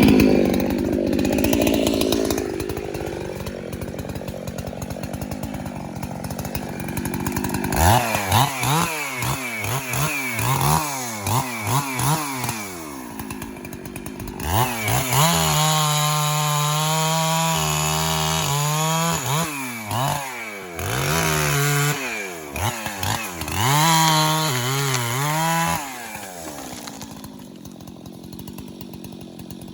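Two-stroke chainsaw running, its engine revved up and let back down about once a second, held steady at high speed for a few seconds in the middle, then settling to a quieter low idle near the end.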